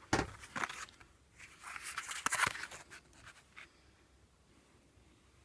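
Handling noise from a pack of battery terminals: a sharp knock at the start, then about a second of rustling and crinkling.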